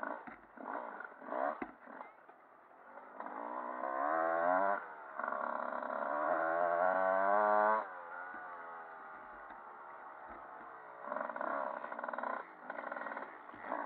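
Motocross bike engine heard from an onboard camera, revving up with rising pitch a few seconds in, held high until it drops off sharply about halfway through, then running at lower, choppier revs.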